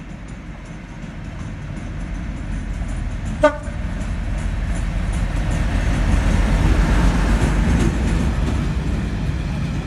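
Colas Rail freight train approaching and passing close by, the rumble of the locomotive and its wagons growing steadily louder, with one short, sharp toot of the locomotive's horn about three and a half seconds in. The loaded box wagons then roll past with a heavy rumble and wheel clatter.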